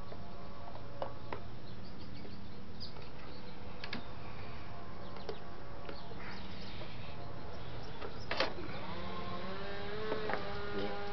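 Scattered light clicks and knocks of hands working on intake hose and clamps under a car's hood, over a steady low hum; the sharpest knock comes a little past the middle. Near the end a wavering tone with several overtones rises slowly over about three seconds.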